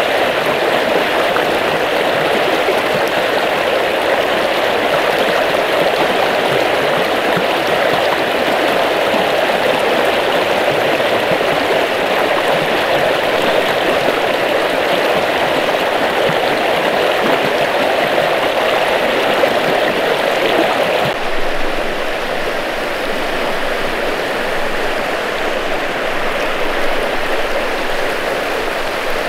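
Water of a small river rushing steadily. About two-thirds of the way through it becomes a little quieter.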